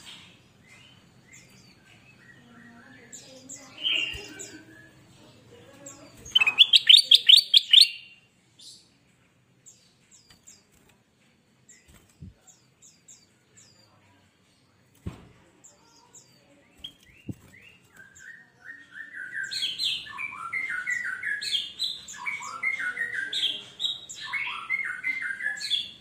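Caged ruby-throated bulbul (kutilang emas) calling and singing: scattered short chirps, a loud rapid trill about six seconds in, then a quiet stretch with a few clicks. From about eighteen seconds in comes a long run of loud, repeated warbling phrases.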